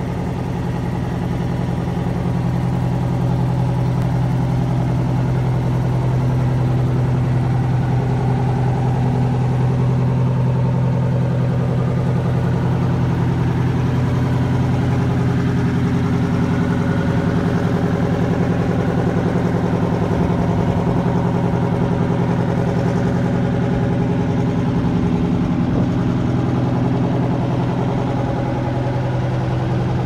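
Blue Bird Wanderlodge motorhome's engine idling steadily, a deep even running note.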